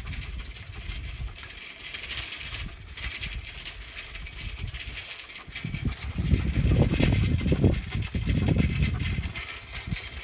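Bicycle riding over a bumpy dirt track, the bike rattling as it goes, with louder low rumbling jolts from about six seconds in.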